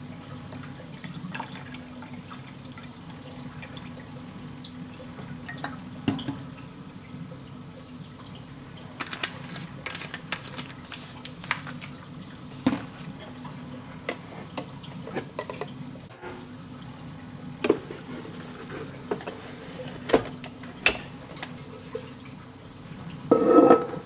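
Descaling solution poured from a bottle into an espresso machine's plastic water tank, then scattered drips and small clicks over a steady low hum. A louder, briefly ringing clatter comes near the end.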